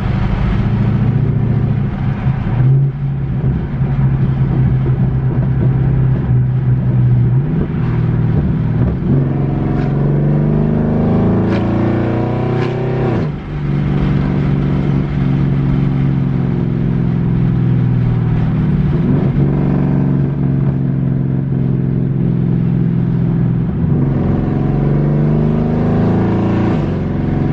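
Car engine with Texas Speed long-tube headers, heard from inside the cabin while driving: a steady exhaust drone. About ten seconds in it accelerates hard, climbing in pitch until a sharp drop at a gear change near thirteen seconds, with another shift near twenty seconds.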